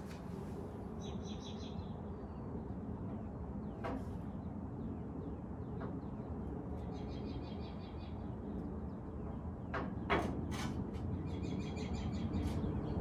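Songbird chirping in short repeated phrases three times over a steady low outdoor rumble, with a couple of sharp knocks, the loudest a little after ten seconds in, as a loose steel front bumper is held up against the car's front end.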